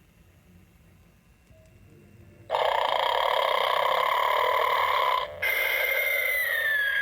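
Gemmy animated Snoring Santa's recorded snore playing through its speaker: after a pause of about two and a half seconds, a loud rasping snore for nearly three seconds, then a whistling breath out that slides down slightly in pitch.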